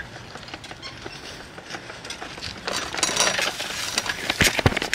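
Bicycle ride picked up by a camera swinging from the rider's neck: jostling noise with scattered clicks and rattles, busier from about halfway through, with a few sharp knocks near the end.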